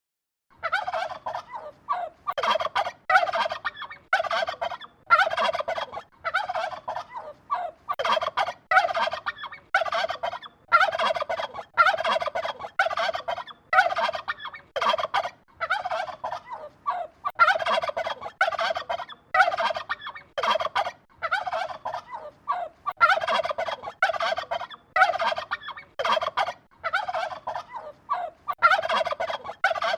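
Turkey gobbling over and over, a quick rattling gobble about once a second.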